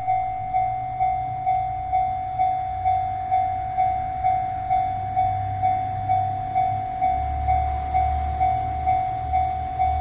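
Japanese railway level-crossing alarm bell ringing in a steady, even rhythm of about two strikes a second while the crossing is closed for an approaching train. A low rumble grows louder about seven seconds in.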